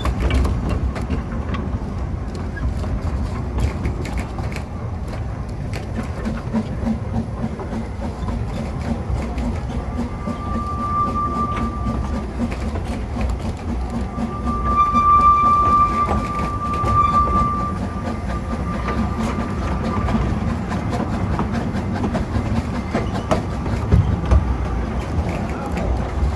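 Narrow-gauge steam locomotive hauling its train: a steady rumble and wheels clicking over the rail joints. A steady high whistle sounds twice, briefly about ten seconds in, then longer from about fourteen to twenty seconds.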